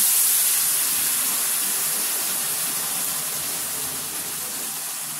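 Water flash-boiling in a hot, oiled cast-iron skillet of rice, with a loud steam hiss and sizzle that slowly dies down.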